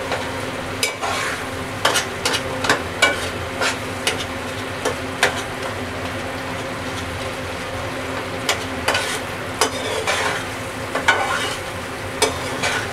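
A spatula scraping and knocking against a metal pot while stirring thick tomato chutney, with irregular clicks over a steady sizzle as the last of its water cooks off.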